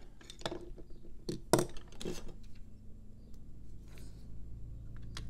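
A few light clicks and knocks of small hand tools and parts being picked up and handled on a workbench, the sharpest about a second and a half in, followed by fainter ticks.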